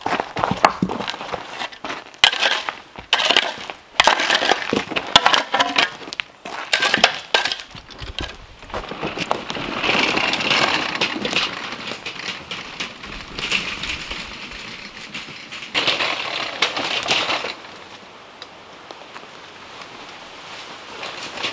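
Footsteps crunching through dry leaf litter and twigs, with many sharp cracks and clicks. The crunching comes in dense patches and tails off to a quieter rustle a few seconds before the end.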